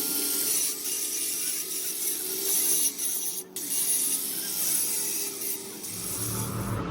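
Hand tools ratcheting and scraping during truck clutch repair work.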